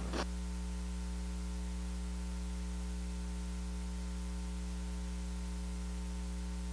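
Steady electrical mains hum, a low, unchanging buzz, with a brief short noise right at the start.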